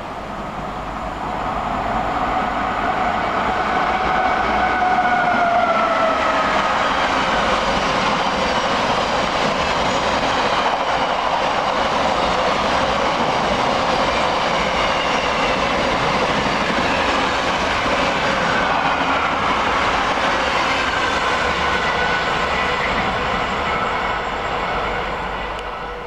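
A long container freight train passing at speed: a steady rush of wagon wheels on the rails that builds over the first couple of seconds and fades near the end. High ringing tones slide down in pitch a few seconds in and again later in the pass.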